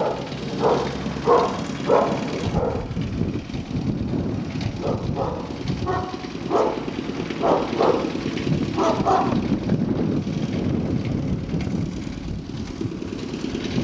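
Fila Brasileiro puppies yipping and barking in short, irregular calls as they play, with a lull of a few seconds near the end. A steady low rumble runs underneath.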